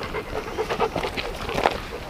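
A large golden-coated dog panting close by as it walks along the trail.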